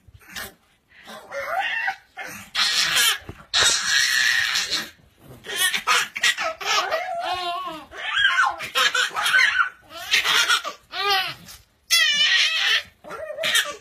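Baby laughing hard in repeated bursts of belly laughter, with pug dog noises mixed in.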